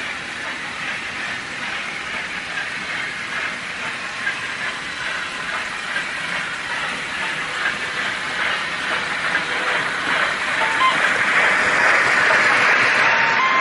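Märklin HO-scale model freight trains running on the layout track, a steady rolling noise of wheels on the rails. It grows louder in the last few seconds as a train of timber-loaded wagons passes close by.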